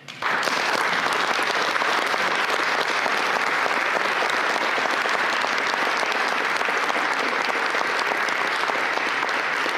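Audience applause, starting abruptly and holding steady.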